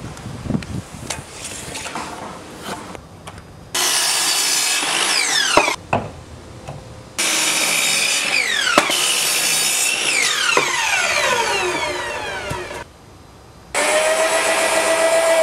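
Electric sliding mitre saw cutting timber twice, its whine falling as the blade spins down after each cut; near the end a power drill runs at a steady pitch, driving into timber.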